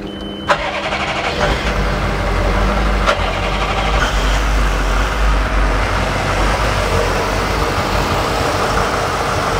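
Twin Mercury 4.3-litre TDI V8 diesel inboard engines starting on the key: a brief high beep, then the engines crank and fire about half a second in and settle into a steady, rumbling idle.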